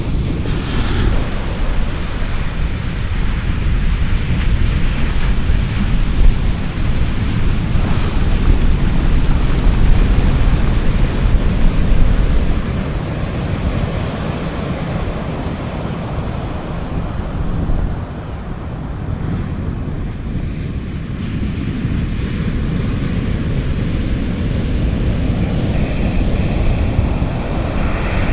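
Sea waves washing onto a beach, a continuous surf noise that swells louder for several seconds before easing off, with a low rumble of wind on the microphone underneath.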